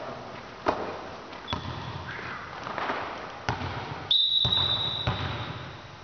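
A volleyball being hit during a rally in an echoing gym: several sharp smacks spread over a few seconds. About four seconds in, a long, high, steady whistle starts and fades out over roughly two seconds.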